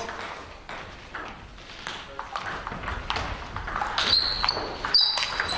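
Table tennis balls clicking on tables and bats in a large sports hall, a scatter of short sharp knocks, with a few brief high-pitched squeaks about four to five seconds in.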